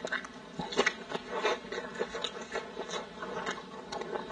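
Close-miked eating sounds: a person biting and chewing a large piece of cooked meat, with irregular wet smacks and clicks from the mouth, a little louder about a second in.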